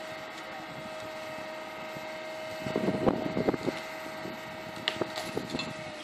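Heavy machinery engines running steadily, with a constant hum. About three seconds in comes a short cluster of irregular knocks and cracks, and a couple of sharp clicks follow near the end.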